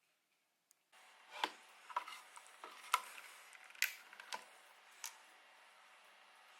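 A handful of sharp plastic clicks and taps, about six, spaced irregularly, from 3D-printed plastic model parts being handled and fitted together.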